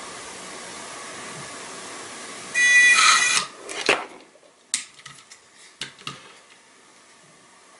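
Small two-wheeled self-balancing robot's drive motors. A steady hiss gives way, about two and a half seconds in, to a loud whine lasting under a second as the motors rev hard. Then come a few sharp clicks as the robot is set down on the desk and catches its balance.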